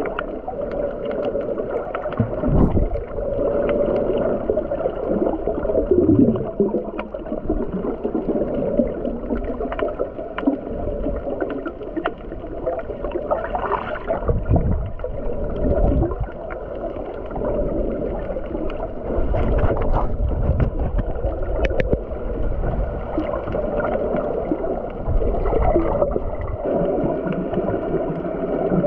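Underwater water noise heard by a camera held below the surface while snorkelling over a reef: a muffled rush and gurgle that swells and ebbs every few seconds, with scattered faint clicks.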